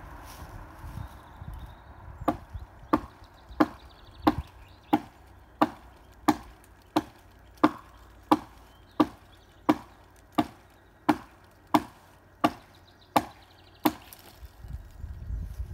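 Hatchet chopping into a dead tree branch: about eighteen evenly spaced woody blows, roughly three every two seconds, starting about two seconds in and stopping a couple of seconds before the end.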